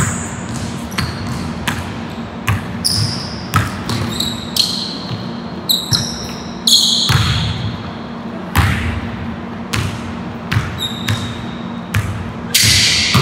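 Basketball bouncing on a hardwood gym floor in live one-on-one play: irregular thuds with short, high-pitched sneaker squeaks in between, echoing in the hall.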